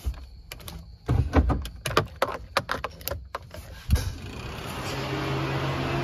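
Clicks and knocks of a car door being handled, with a hard knock about four seconds in like the door shutting. Then the electric radiator cooling fans and engine of a K-swapped Honda CR-V running with a steady whir and hum that grows louder. The fans are now switched on by the AC through the KPro.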